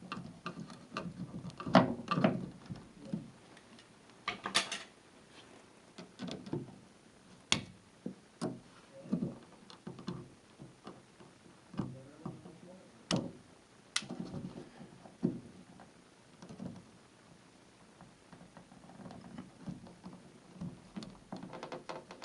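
Irregular handling sounds in a small room: sharp clicks and light knocks with rustling between them. The loudest clicks come about two seconds in and around the middle.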